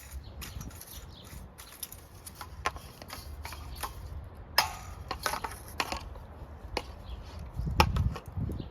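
Spinning ceiling fan blades repeatedly knocking against a duster held into them: irregular clicks and knocks over a low rumble, with a sharper hit about halfway through and another near the end.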